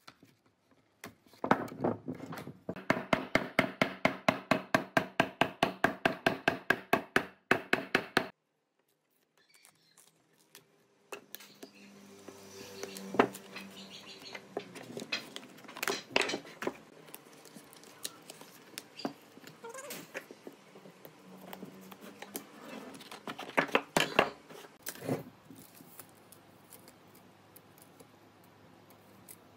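Hammer knocking a log in a fast, even run of sharp, ringing blows, about five a second, for several seconds, loosening its bark. After a short pause, bark is torn and peeled off the logs by hand, a quieter tearing and cracking with occasional knocks as the logs are handled.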